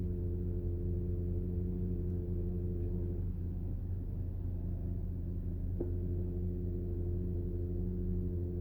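Radial-piston tandem hydraulic pump of a Porsche PDCC system running with a steady hum made of several level tones. The upper tones fade about three seconds in and come back after a faint click near six seconds. Nothing is faulty: this whine is normal for the pump.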